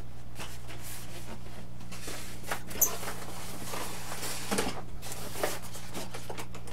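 Handling noise from a foam RC airplane fuselage being laid into its styrofoam shipping box: scattered rustles and light knocks, with a sharp click just under three seconds in and a brief louder rub about four and a half seconds in, over a steady low hum.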